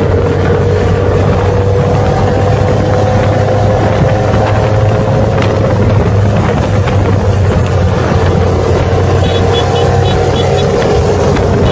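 Highway traffic noise recorded from a moving vehicle: heavy wind and road rumble on the microphone, with an engine holding a steady drone that drifts slightly lower in pitch in the second half.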